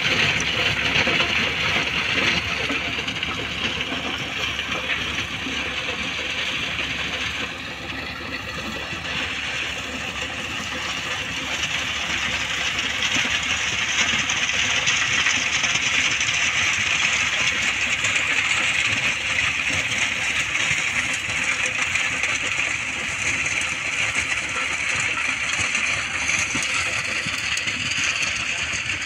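John Deere 5210 4x4 diesel tractor running steadily under load, pulling a 6-foot rotavator through dry soil.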